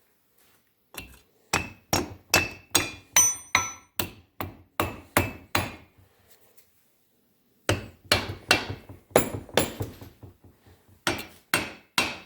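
Mini sledgehammer striking the aluminium cylinder head of a VW Type 1 1600cc engine to knock it loose. There are two runs of quick blows, about three a second, each with a short metallic ring, then a few spaced blows near the end.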